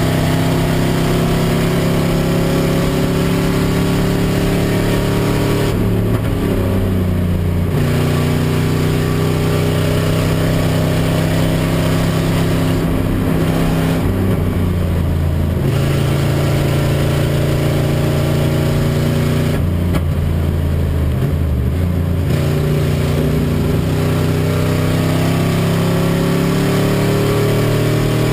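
Race car engine heard from inside the stripped cabin, pulling hard under load and changing pitch through the gears, with the revs dropping off three times as the driver lifts for corners. The engine is not running on all cylinders, described as running on six and a half cylinders.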